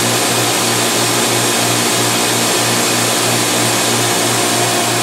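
Studer S145 CNC cylindrical grinder running with its grinding wheel spinning: a steady hiss over a low hum that pulses about three times a second.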